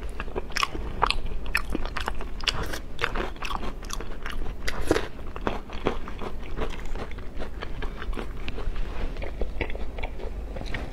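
Close-up eating sounds: a person biting into and chewing soft, sauce-glazed braised eel, with a steady stream of short, wet mouth clicks.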